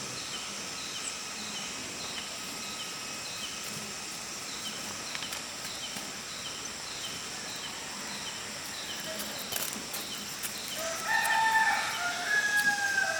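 Rooster crowing about eleven seconds in, over a steady rural background with a faint chirp repeating about twice a second.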